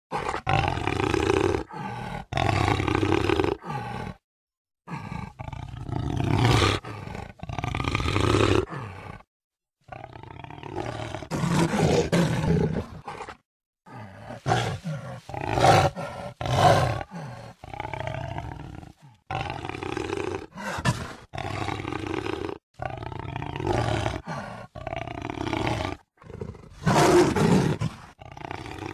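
Jaguar roaring again and again in a long string of calls, broken several times by brief complete silences where separate recordings are joined.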